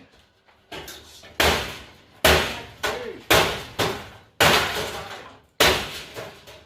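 A hammer striking a broken countertop oven (a Kitchen Master 3-in-1) about six times, roughly one heavy blow a second. Each blow is loud and dies away quickly.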